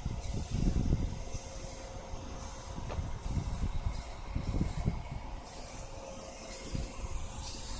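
Paint spray gun hissing in short bursts of about half a second, on and off repeatedly as each pass of clear coat is laid onto a car bumper, over an uneven low rumble.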